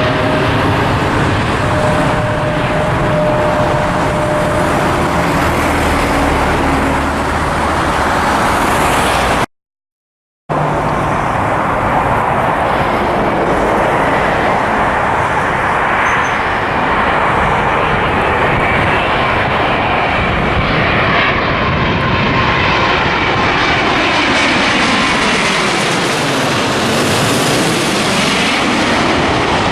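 Jet airliner engines, a loud steady rush of noise as a plane passes. The sound cuts out completely for about a second about a third of the way in, then resumes; near the end, sweeping tones rise and fall as the aircraft goes by.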